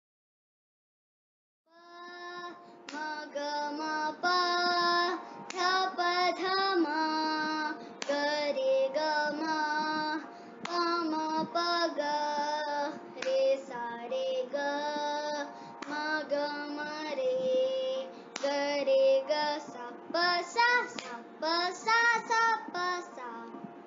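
A child singing an Indian classical melody solo, holding notes and moving between them in short phrases, starting about two seconds in after a brief silence.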